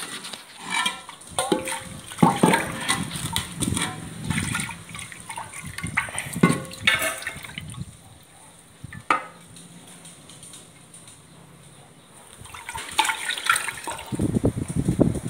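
Cooked dal being churned in a metal pot: wet sloshing and squelching with sharp knocks against the pot. It eases off for a few seconds past the middle, then picks up again near the end.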